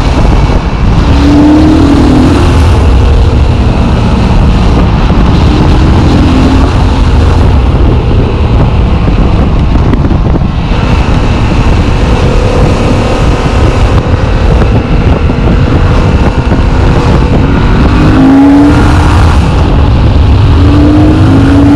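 Yamaha MT-07 parallel-twin engine running under heavy wind noise. The engine note rises briefly several times as the bike accelerates.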